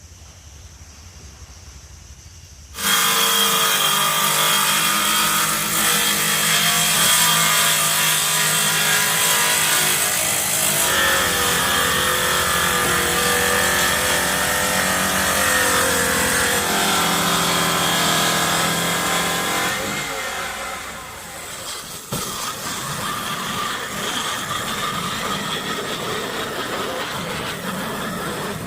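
A power tool starting suddenly and working wood with a steady hum that shifts in pitch now and then, changing to a rougher, noisier cutting sound about twenty seconds in.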